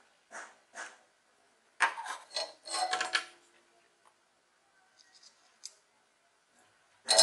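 Short metallic clicks and scraping from small hand tools being handled on a workbench: two light clicks, a louder rattling cluster about two seconds in, a few faint ticks, and another loud clatter at the end.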